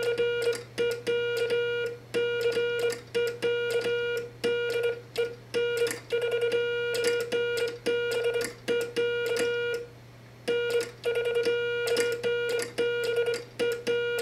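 Morse code sent on a circa-1955 Vibroplex semi-automatic 'bug' key: a steady mid-pitched tone keyed on and off with sharp contact clicks, with a short pause about ten seconds in. The bug's pendulum-made dits run much faster than the hand-made dahs, giving a sing-songy swing. The pendulum is weighted with solder to slow it to around 20 words per minute, below a bug's usual 25 and up.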